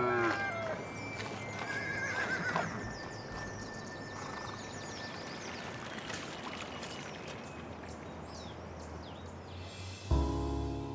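A horse whinnies, a quavering call at the start and a shorter one about two seconds in, over rural ambience with small birds chirping. Music comes in at the very end.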